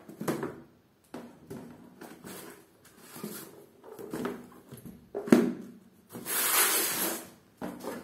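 Paperback study books handled and set down on a concrete floor: a series of soft taps and knocks as they are laid out, the loudest about five seconds in. A longer scraping rustle follows, lasting about a second and a half.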